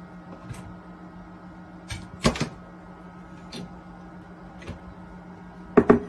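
Microwave oven running steadily while it preheats, a low hum. A few sharp clicks and knocks break in about two seconds in, with the loudest knock near the end.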